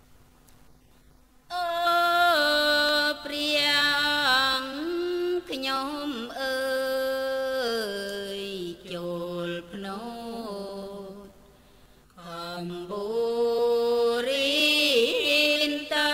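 A single voice chanting a Buddhist dhamma verse in long held notes that glide and waver in pitch. It comes in about a second and a half in and pauses briefly for breath near the twelve-second mark.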